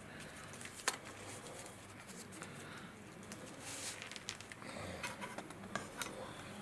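Quiet handling of a camcorder by hand: scattered small plastic clicks and taps, with one sharper click about a second in, as the battery is fitted.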